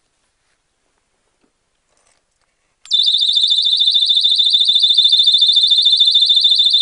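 Small handheld electronic alarm sounding: after about three seconds of near silence it switches on abruptly into a loud, high-pitched tone with a rapid warble of about ten pulses a second, reading about 105 decibels on a sound meter.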